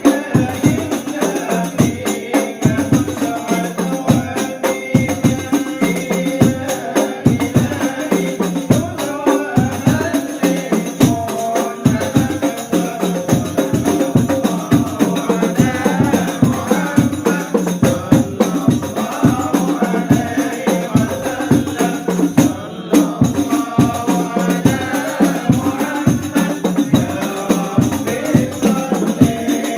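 Rebana frame drums beaten in a steady, fast rhythm while a group of voices sings devotional sholawat over them.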